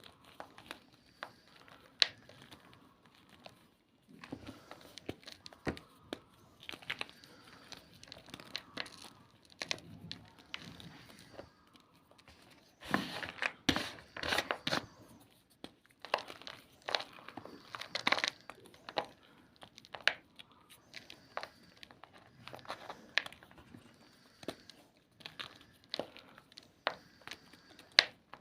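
Homemade gym chalk being crushed by hand: irregular crunching and crumbling crackles in clusters, the densest and loudest about halfway through.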